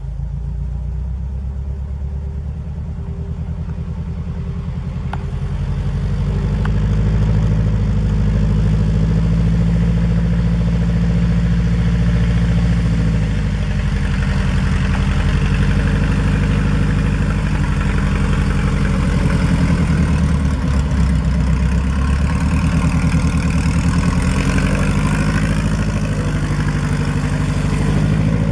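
Single-engine bush plane's piston engine and propeller running as the plane taxis over the strip. The engine grows louder about six to eight seconds in as the plane comes closer, and its speed rises and falls a little after that.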